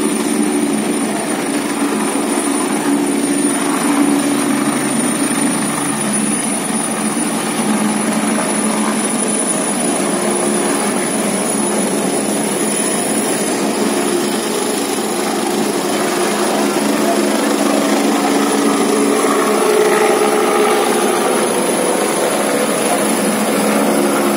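Helicopter running loud and steady, with a continuous rotor and engine noise and a thin steady high whine, as it lifts off from the ground and climbs overhead.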